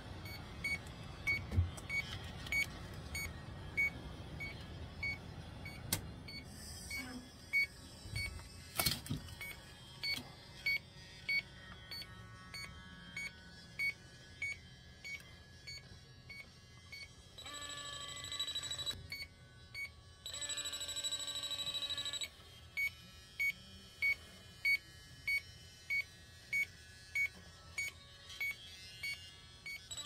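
Electronic refrigerant leak detector beeping steadily, a little under two short high beeps a second, and twice breaking into a rapid continuous alarm as its probe picks up refrigerant at the evaporator coil: the sign of an R22 leak in the coil. A few sharp knocks from handling the unit.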